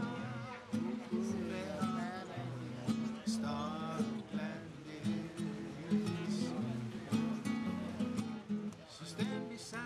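Acoustic guitar played in a steady rhythm, an instrumental passage between sung verses.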